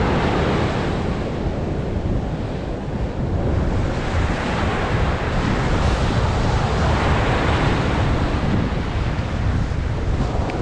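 Ocean surf breaking on the beach, with strong wind buffeting the microphone.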